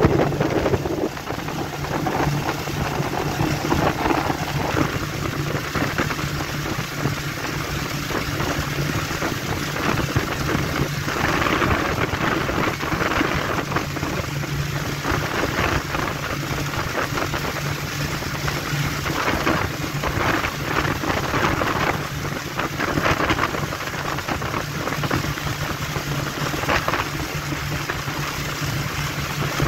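Motorboat under way on open water: a steady low engine hum under a loud rushing of wind and water, with irregular louder bursts of splashing as the hull runs through choppy water.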